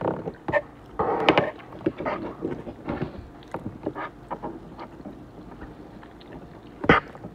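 Eating sounds: a metal fork clicking and scraping on a ceramic plate while spaghetti is twirled, then a mouthful being chewed. There are many small irregular clicks and one sharp click near the end.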